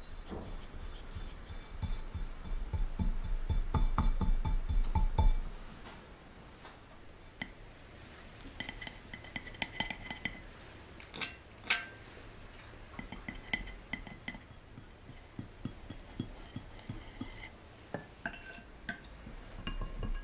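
Metal offset spatula spreading buttercream on a cake, with repeated soft scraping strokes for the first five seconds or so, then scattered light clinks and ticks of the metal blade against the cake stand.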